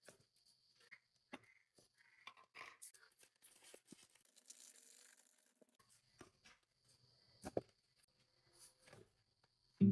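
Faint kitchen handling sounds: scissors snipping open a plastic sugar bag, with a rustling stretch about four seconds in, among scattered clicks and knocks of plastic storage containers and lids on the counter.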